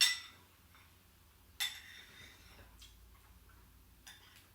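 Metal cutlery clinking against a dish. There is a sharp clink with a short ring right at the start, another about a second and a half in, and two fainter ones later.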